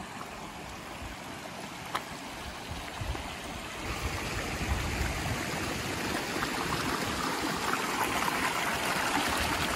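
Rushing stream water, a steady wash of noise that grows louder as it draws nearer, with a few faint clicks.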